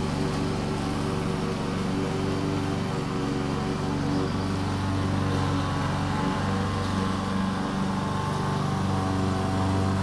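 Lawn mower engine running steadily while cutting grass, its pitch wavering slightly as it moves.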